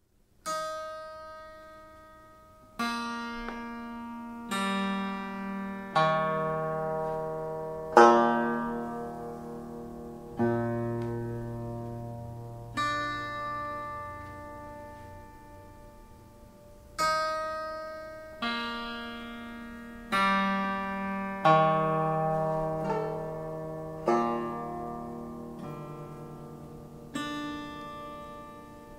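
Slow instrumental background music: single chords on a plucked-string or keyboard instrument, each struck and left to ring out and fade, one every two seconds or so.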